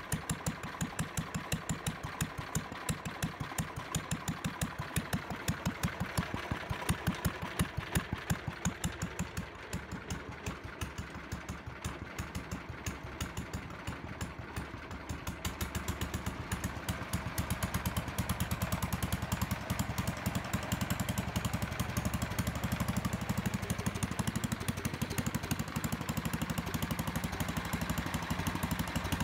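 Air-cooled single-cylinder Kohler engine on a Howard Gem rotovator, running at a steady, slow firing beat. About halfway through it speeds up and runs faster and louder.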